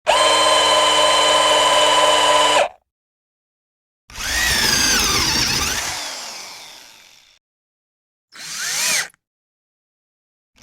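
Electric drill motor run three times. First it runs at a steady speed for about two and a half seconds and cuts off sharply. After a pause it starts again, its pitch falling as it winds down over about three seconds. Near the end comes a short trigger blip that spins up and straight back down.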